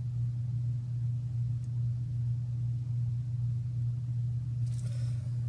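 A steady low hum, with a faint brief rustle near the end.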